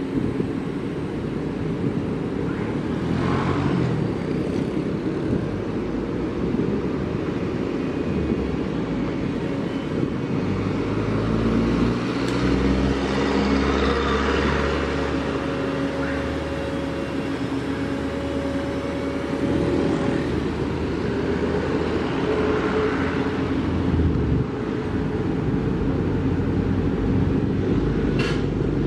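Doosan DX300LCA hydraulic excavator's diesel engine running under load while it works its boom and bucket. The engine note rises and holds through the middle, with a steady hydraulic whine, and a sharp metal clank comes near the end.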